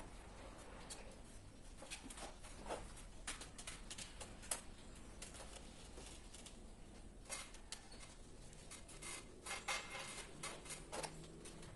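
Irregular light clicks and scrapes from a screwdriver and fingers working the terminal screws and plastic bodies of miniature circuit breakers in a distribution board. The clicks come thicker near the end.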